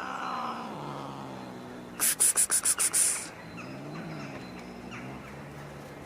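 Cat giving a long, low yowl that wavers in pitch and briefly rises and falls about four seconds in: the warning moan of a cat in a standoff with another cat. About two seconds in, a quick run of about eight sharp, high clicks lasts a little over a second.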